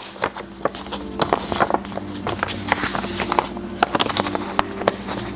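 Rustling and irregular light clicks of a vellum envelope being handled and opened, over a faint steady hum.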